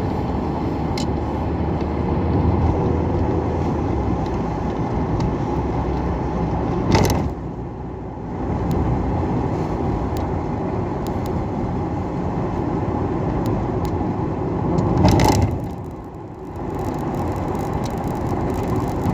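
Car cabin noise while driving: a steady low rumble of road and engine, with two brief louder rushes of noise about seven and fifteen seconds in.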